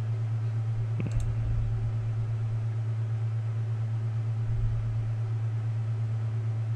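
Steady low hum in the room or recording chain, with a single sharp click about a second in and a couple of faint low thuds.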